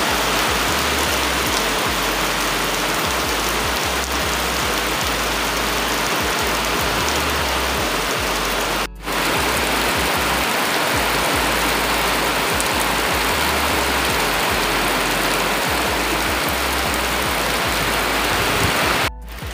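Heavy tropical rain pouring down on trees and a house, a loud steady hiss. It drops out briefly about nine seconds in and again near the end.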